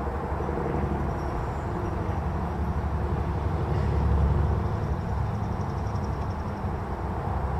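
Low, steady rumble of a locomotive-hauled freight train approaching in the distance, swelling a little about four seconds in.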